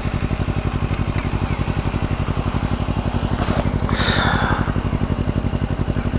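Kawasaki Ninja 250 engine idling steadily at a standstill, its exhaust pulses coming in an even, rapid beat. A brief rustling hiss about three and a half seconds in.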